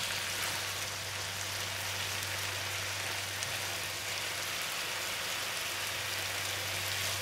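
Sauce-coated tofu cubes sizzling in a nonstick frying pan, a steady crackling hiss like rain, while a slotted spatula turns them over.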